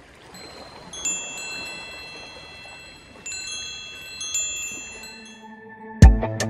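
Wind chimes tinkling: clusters of high ringing tones struck about a second in, again at about three and four seconds, each ringing on and fading. Near the end a loud low hit starts music with guitar.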